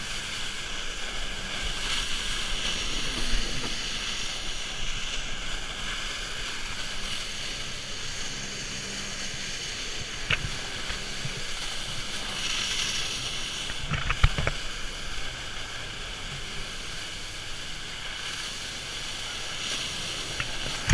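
Steady motor noise mixed with wind on the microphone and rushing water, with a few sharp knocks about ten seconds in and again around fourteen seconds.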